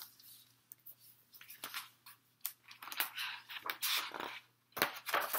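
Pages of a hardcover picture book being turned, paper rustling and swishing in several strokes, with light taps and clicks as the covers are handled.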